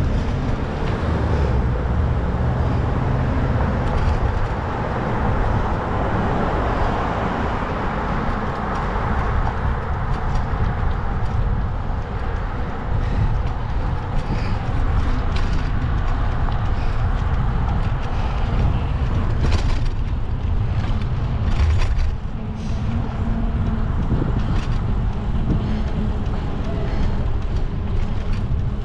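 Road traffic on a city avenue heard from a moving bicycle, with a steady low wind rumble on the microphone. A vehicle swells past about a quarter of the way in.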